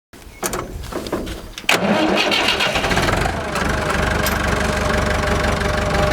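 An engine starting: a few knocks of cranking, catching suddenly about two seconds in, then running steadily at idle.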